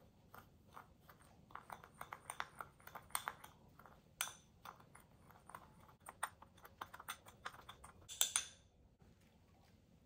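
Metal spoon stirring and scraping dry spices in a small glass bowl: a run of quick light clicks and taps against the glass, with louder clinks about four and eight seconds in. The clicking stops about nine seconds in.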